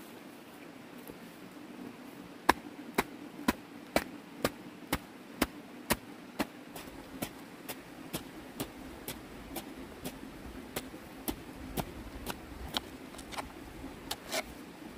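A run of evenly spaced sharp strikes, about two a second, starting a couple of seconds in and stopping near the end, over a faint steady hum.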